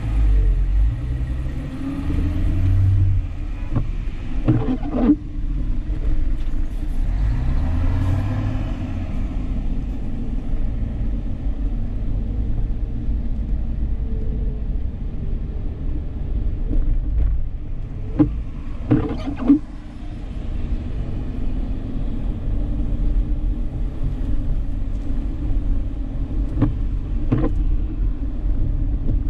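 Dodge Charger 3.5 V6 driving, its engine and tyres making a steady low rumble. A few short knocks break in: around four to five seconds in, a cluster around eighteen to nineteen seconds, and one near twenty-seven seconds.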